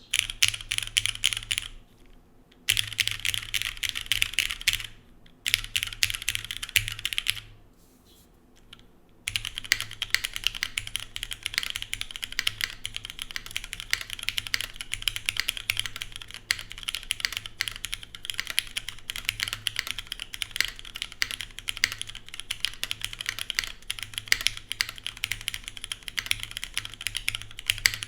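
Typing on a TGR Jane ME mechanical keyboard with lubed and filmed Cherry MX Black linear switches, GMK keycaps, an aluminium plate and a gummy O-ring mount: quick runs of key clacks. The typing pauses briefly about two, five and eight seconds in, then runs on without a break.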